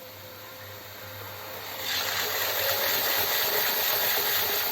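OO gauge model train running along the track, a steady rushing hiss that grows markedly louder about two seconds in as it comes closer.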